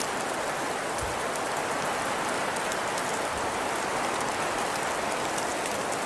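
Steady rain-like hiss of wet snow falling and pattering on surfaces, with faint fine ticks of individual flakes or drops.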